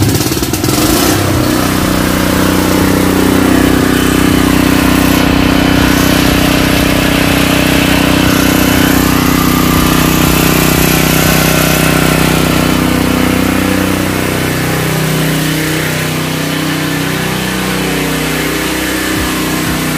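Extreme ET4000 gasoline generator's recoil-started conventional engine catching right at the start, then running loud and steady. Its pitch wavers a little in the second half.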